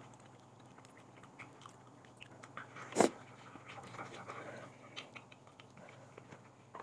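Quiet eating sounds: chewing and small clicks of chopsticks against a porcelain rice bowl, with one sharp clack about three seconds in.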